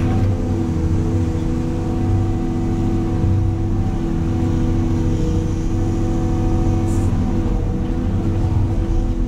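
Caterpillar excavator's diesel engine running steadily, heard from inside the operator's cab while the machine is worked.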